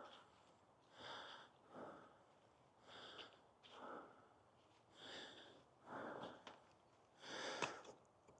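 Faint breathing by a person close to the microphone: about four slow breaths, each a soft in-breath and out-breath through the nose.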